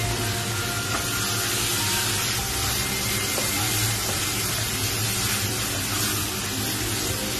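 Food sizzling in a hot pan, a steady frying hiss with a low hum beneath it.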